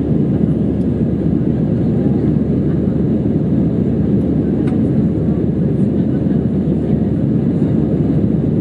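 Steady engine and airflow noise inside the cabin of an Airbus A319 climbing after takeoff, a dense low rumble with no change in level.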